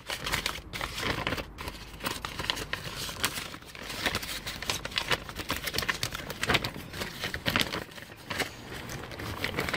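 Plastic compost bag, a Westland Gro-Sure seed compost sack, crinkling and rustling in irregular crackles as it is handled and opened.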